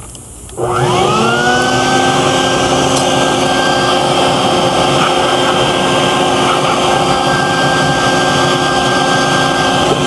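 Wet/dry shop vacuum, hooked up as a blower, switched on about half a second in. Its motor spins up with a rising whine, then runs at a steady high whine over a loud rush of air.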